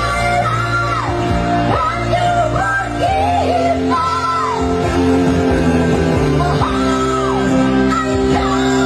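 Two women singing shrill, high held notes through a PA system over a live band, whose keyboard holds steady chords beneath the voices.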